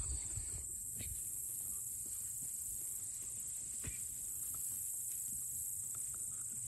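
Steady high-pitched drone of field insects such as crickets, with a few faint soft clicks and rustles.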